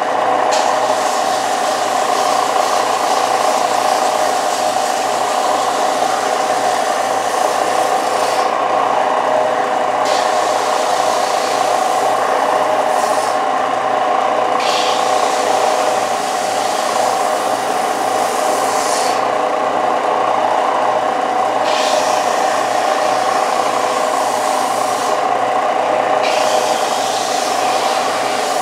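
Central Machinery 4-by-36-inch belt sander running steadily while a wooden bench slat is pressed onto its 120-grit belt and rocked side to side, taking off old paint. The rasping hiss of wood on the belt breaks off briefly four times as the board is lifted and set down again, over the motor's constant hum.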